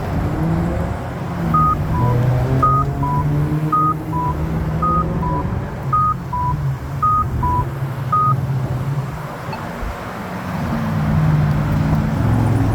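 Accessible pedestrian signal sounding its walk tone, a two-note descending beep like a cuckoo, repeated seven times about once a second, over passing traffic with engines accelerating.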